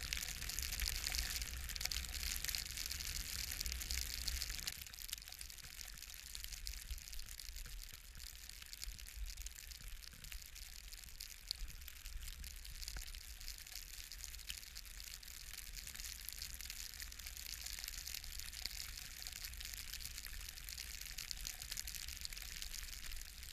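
Blizzard wind buffeting the microphone: a steady rushing hiss over a low rumble, easing somewhat about five seconds in.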